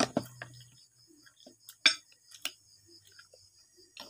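A few sharp clinks of a metal spoon against ceramic bowls and plates while eating, the loudest about two seconds in.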